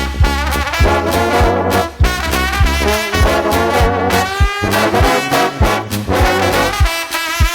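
Brass-led band music: a horn section playing over a steady beat, with a kick drum about twice a second, a bass line and regular cymbal or snare hits.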